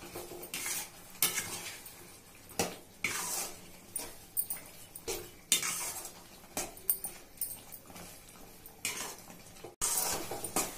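Perforated steel ladle stirring chicken pieces through thick chilli sauce in a steel kadai: irregular scrapes and clinks of metal against the pan, a stroke every second or so.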